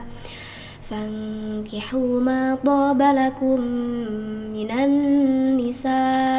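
A woman reciting the Quran in a slow melodic chant: a short in-breath, then long held vowels that step and glide up and down in pitch, broken by brief pauses.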